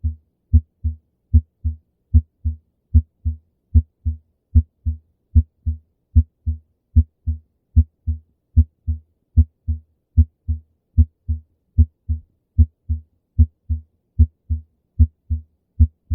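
Recorded heart sounds: a steady run of paired low thuds, a little faster than one pair a second. The louder first heart sound, from the mitral and tricuspid valves closing, is followed a fraction of a second later by the second heart sound, from the semilunar valves closing.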